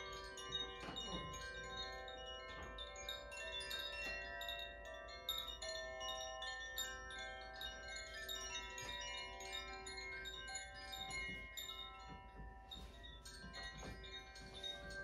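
Chimes ringing in a loose, continuous cascade: many bell-like notes at different pitches struck one after another, each ringing on and overlapping the next.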